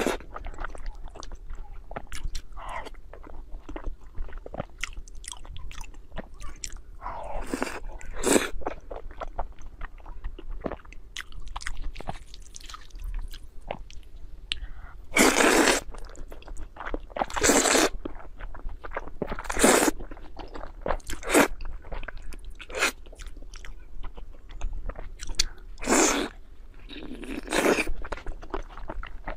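Close-miked eating: wet chewing and smacking of glazed braised pork skin, with several loud slurps of spicy noodles in the middle and again near the end.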